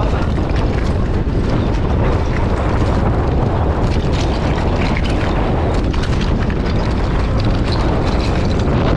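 Strong wind buffeting the camera microphone, a loud, steady noise heaviest in the low end.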